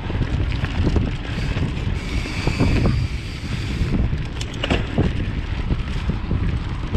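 Mountain bike rolling over a dirt forest singletrack: wind buffeting the microphone over steady tyre rumble, with frequent small knocks and rattles from bumps in the trail. There is a brighter hiss for a couple of seconds near the middle.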